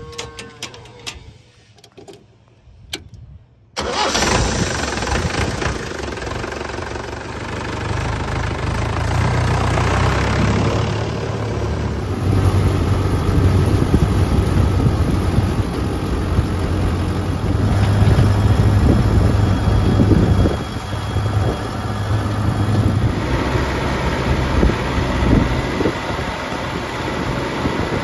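A farm tractor's diesel engine starting up about four seconds in, after a few faint clicks, then running steadily, louder at times.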